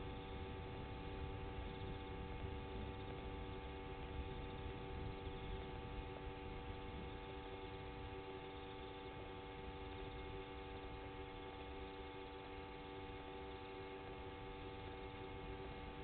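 A steady hum of several fixed tones over low rumbling noise, with nothing from the burrow itself.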